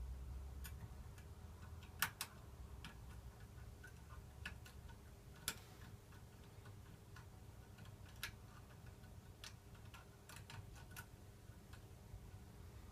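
Irregular small metallic clicks and ticks of a curtain pick lifting the levers inside an ERA Fortress five-lever mortice lock, with a few sharper clicks about two seconds in, around five and a half seconds and around eight seconds.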